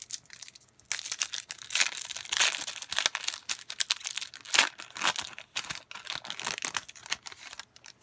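A 2021 Topps Gallery card pack wrapper being torn open and crinkled by hand as the cards are pulled out: an irregular run of crackling and tearing that starts about a second in and stops just before the end.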